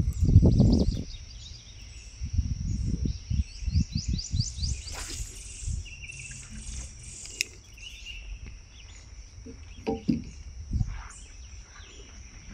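Birds chirping, with a quick run of rising chirps a few seconds in and scattered calls after, over a steady high-pitched insect drone. Low thuds and rumble come in and out, loudest in the first second.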